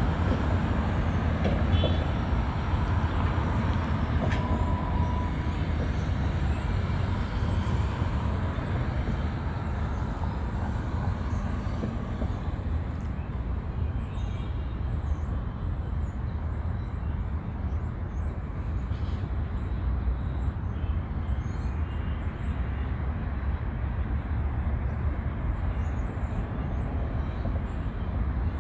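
Wind blowing steadily, heard mostly as a low rumble.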